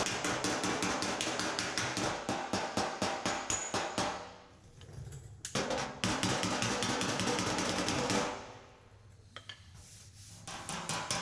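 Pick hammer tapping rapidly on the back of a steel car fender against a dolly held on the outside, working out low spots. The strikes come in quick runs, broken by two short pauses, about four and eight seconds in.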